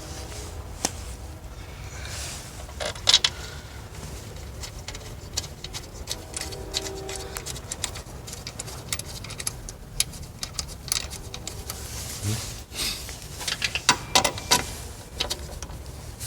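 Scattered clicks, taps and scrapes of a screwdriver and plastic engine-bay parts as screws are fastened into the air filter housing. There is a louder clatter about three seconds in and another run of sharper clicks near the end.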